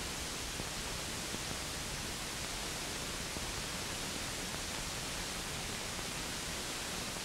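Steady hiss of an old film soundtrack, with no other sound over it.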